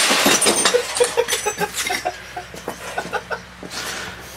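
Broken CRT glass shards clinking and scraping, a quick run of sharp clinks and pings in the first couple of seconds that thins out to a few scattered ones.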